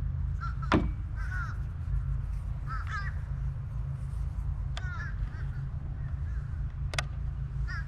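A crow cawing in short, repeated clusters of calls, over a steady low rumble. A few sharp clicks cut in, the loudest under a second in.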